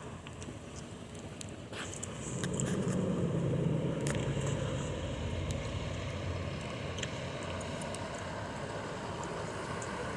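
Tower ladder fire truck's engine running, growing louder about two seconds in and then holding a steady rumble.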